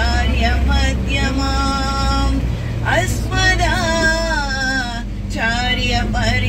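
Women singing a Hindu devotional bhajan into a handheld microphone, in long phrases with held, wavering notes. Beneath the singing runs the steady low rumble of the moving bus.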